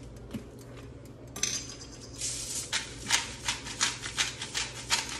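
Hand-twisted salt grinder grinding coarse pink Himalayan salt: a run of short gritty crunching clicks, about three or four a second, starting about a second and a half in.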